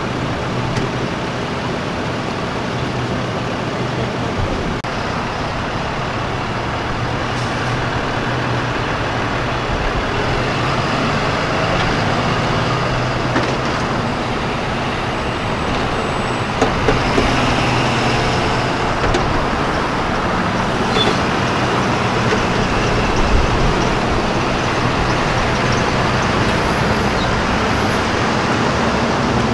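A line of tow trucks driving past one after another: a steady blend of truck engines and tyre noise, with a low hum throughout and a few brief clicks.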